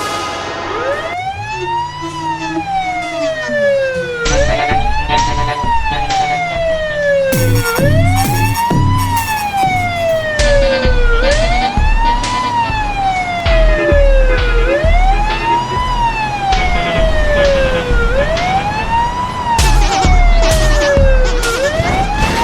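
Police car siren sound effect wailing: each cycle rises quickly in pitch and then falls slowly, repeating about every three and a half seconds. A low pulsing bass beat runs underneath, with a few sharp hits.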